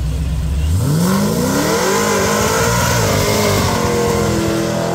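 Supercharged LS V8 of a Chevy C-10 revving up hard about a second in and holding high revs, with a loud hiss as the rear tyres spin in a smoking burnout.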